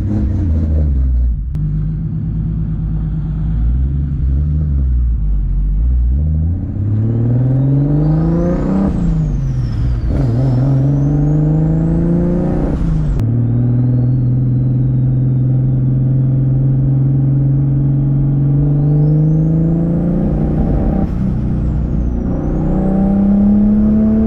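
Turbocharged 1.5JZ inline-six in a Lexus IS300 driving off: it runs low for several seconds, then revs climb through the gears with drops at the shifts about nine and thirteen seconds in. It holds a steady pitch for a few seconds, then climbs again near the end, with a faint high whine rising and falling along with the revs.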